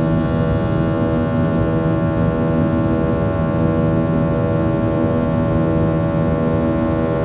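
Boeing 737-800's CFM56-7B turbofan engines running steadily, heard from inside the passenger cabin: a steady hum of several engine tones over a low rumble.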